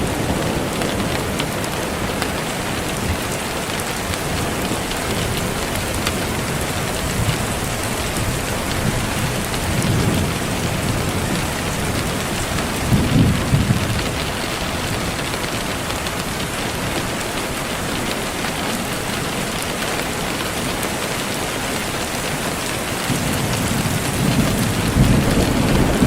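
Steady rain falling, a dense even hiss, with low rumbles of thunder about halfway through and again near the end.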